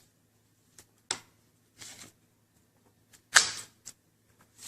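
Plastic protective cover being peeled and handled on a new laptop LCD panel: a few sharp clicks and short crinkly rustles, the loudest about three and a half seconds in.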